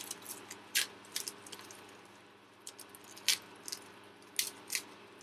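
A series of about seven sharp clicks and light rattles as kitchen items and packaging are handled, over a faint steady hiss.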